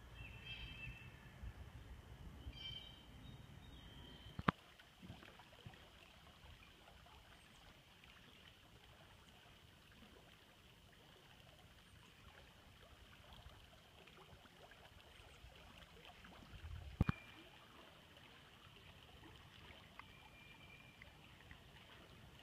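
Faint outdoor ambience: a steady low hiss, with a few short bird chirps in the first three seconds and two sharp clicks, one about four and a half seconds in and one about seventeen seconds in.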